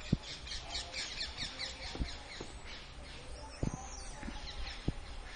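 Birds chirping in quick runs of short, falling notes, with a few dull knocks.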